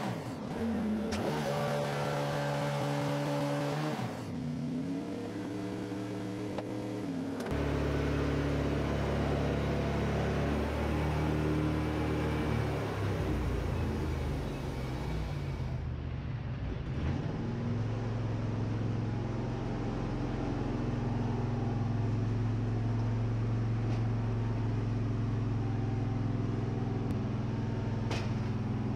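Wood-Mizer edger and sawmill machinery running with a steady drone. The pitch and loudness shift a few seconds in and again about a quarter of the way through as cedar boards are fed and cut, then settle steadier. There is a single sharp tap near the end.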